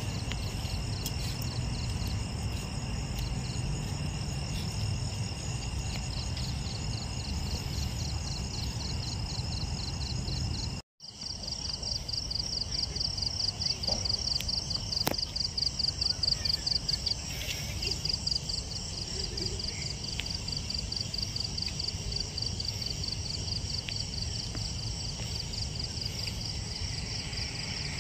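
Night insect chorus: high, steady trills and a rhythmic pulsing call of a few pulses a second, over a low background rumble, with a brief dropout about eleven seconds in.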